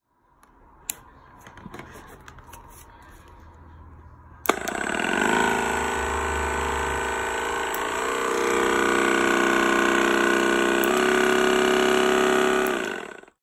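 Percussion massage gun handled with a few faint clicks, then switched on with a sharp click about four and a half seconds in. Its motor and pounding head run with a loud, steady whining buzz that shifts in pitch twice, about eight and eleven seconds in, then stops shortly before the end.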